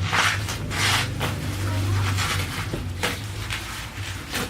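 Short rustling and scraping bursts from a cardboard package being handled, the loudest near the start and about a second in, over a steady low hum.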